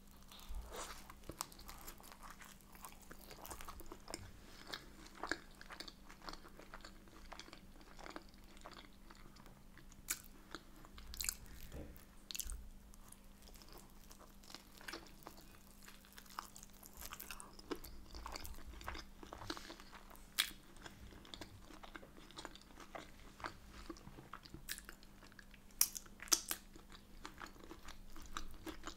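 Close-up chewing and biting of a filled Yorkshire pudding: soft, wet mouth sounds with many small clicks and a few louder crunchy ones scattered through.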